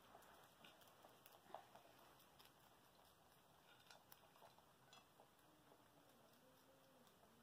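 Very faint crunching and clicking of two rabbits chewing lettuce and celery, small irregular ticks over near silence.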